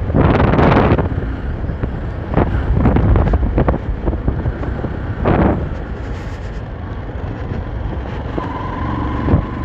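Motorcycle riding on a loose dirt road: a steady low engine and road rumble with wind buffeting the microphone, and gusts of louder rushing noise about half a second in and again near five seconds. About eight seconds in, a faint thin whine comes in and rises slightly.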